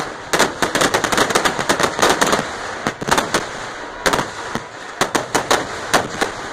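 Kerala temple-festival fireworks (vedikettu) going off in a dense barrage: rapid, overlapping crackling with many sharp, loud bangs. After the first couple of seconds the bangs come slightly further apart.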